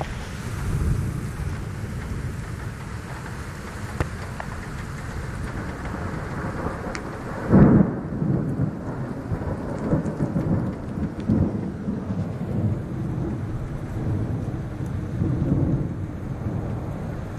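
Rain falling during a thunderstorm. A loud clap of thunder comes about halfway through, followed by rolling low rumbles.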